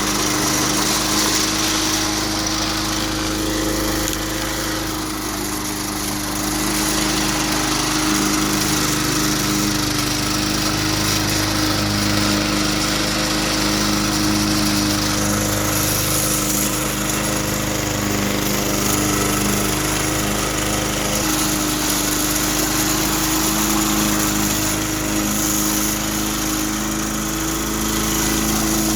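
Cub Cadet Cyclocut walk-behind mower's Kawasaki FJ180V 179 cc single-cylinder engine running steadily, freshly started from cold.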